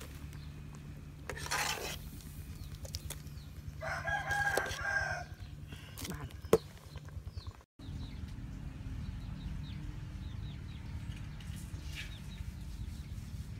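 A rooster crows once, a call of a little over a second about four seconds in. Around it come the scrape and clink of a metal spoon in an aluminium bowl, with a sharp knock about six and a half seconds in as the loudest moment.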